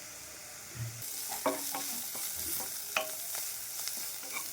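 Onion, green chilli, ginger-garlic paste and grated carrot sizzling in oil in a pan while being stirred, the spoon scraping and knocking against the pan a few times. The sizzle grows louder about a second in.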